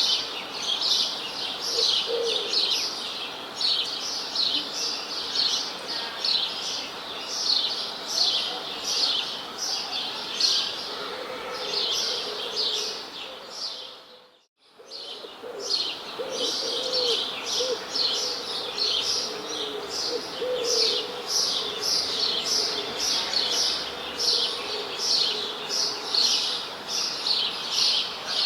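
A chorus of many small birds chirping, a dense, continuous stream of quick high chirps, with a few lower calls in the middle. The sound fades out briefly about halfway through and comes straight back.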